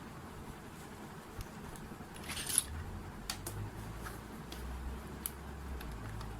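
Faint handling sounds: a short scrape or rustle about two and a half seconds in, then a few light clicks, over a low steady hum.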